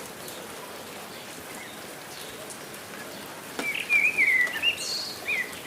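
Steady rain with scattered drips, and a songbird singing a short warbling phrase from just past halfway, louder than the rain.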